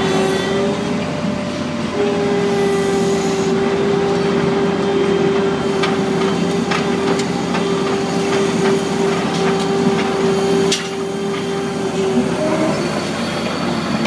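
Feed mixer wagon running while it discharges feed, with a steady mechanical whine and scattered clicks and rattles from the machine. The whine drops out briefly about two seconds in and again near the end.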